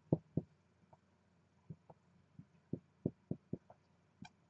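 Marker writing on a whiteboard: about a dozen short, soft taps and strokes at irregular intervals as letters are written, with one sharper click near the end.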